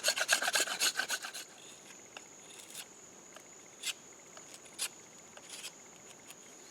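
The spine of an LT Wright Genesis knife scraping burrs off wood of a hand-drill set in rapid back-and-forth strokes, several a second, stopping about a second and a half in. A steady high insect trill from a cricket then remains, with a few faint clicks.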